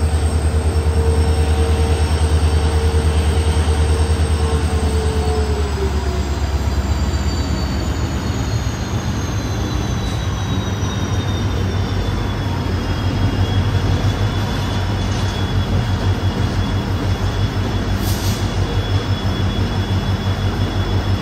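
Diesel locomotive drawing a passenger train slowly into the platform. Its deep engine drone turns to a throbbing beat about halfway through, and a high whine falls in pitch as the train slows.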